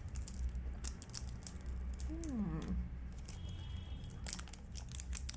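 Crinkling and clicking of a chocolate bar's wrapper being handled and opened, the crackles growing denser near the end. A short falling vocal hum about two seconds in, over a steady low hum.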